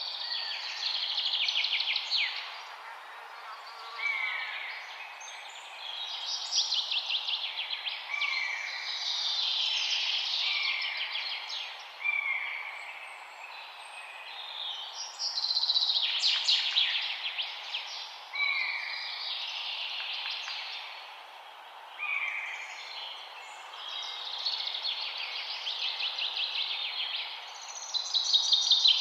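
Birds singing: song phrases every few seconds made of rapid high trills and short falling whistles, over a steady background hiss.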